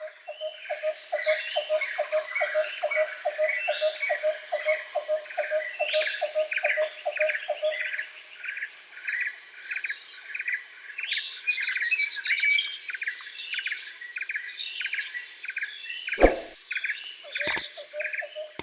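Several birds chirping and singing at once, with a lower call repeating about four times a second through the first half. Two thumps come near the end.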